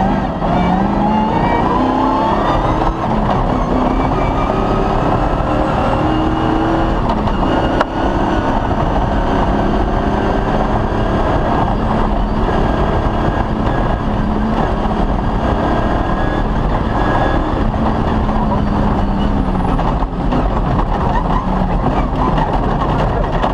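Cross-country rally car's engine driven hard, revving up and changing pitch repeatedly as it goes through the gears, over a steady rush of running noise, with brief lifts off the throttle twice.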